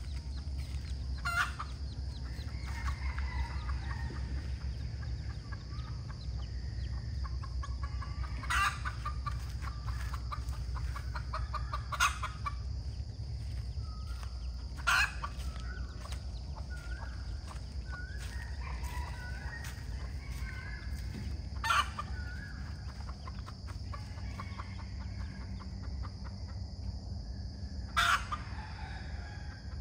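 Chickens clucking and calling, with six short, sharp, loud calls spread through and softer wavering calls between them, over a steady low hum.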